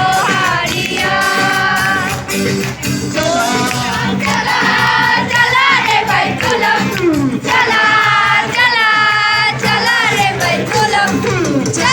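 A carol group singing a Christmas carol together, holding long notes.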